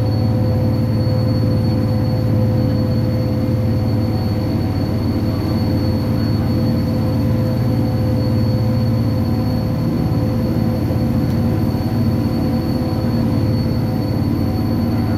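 Cog railway railcar running uphill, heard from inside the passenger cabin: a steady low rumble with a constant hum and a faint high whine from the drive.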